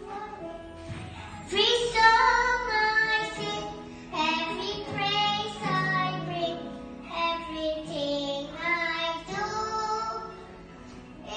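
A young girl singing through a microphone, over instrumental accompaniment. Her voice grows louder about a second and a half in.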